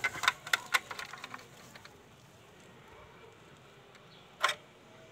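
Small clicks and taps of a plastic changeover switch cover being handled and fitted into place. A quick run of clicks comes in the first second or so, then another short clatter about four and a half seconds in.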